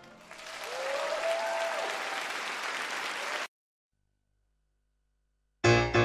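Audience applause at the end of a live song recording, stopping abruptly after about three and a half seconds. After a moment of silence, loud rhythmic music with strong beats begins near the end.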